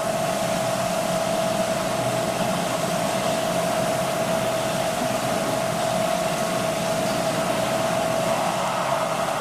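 A steady machine hum with one constant mid-pitched tone over an even hiss, like a ventilation fan or air-handling unit running.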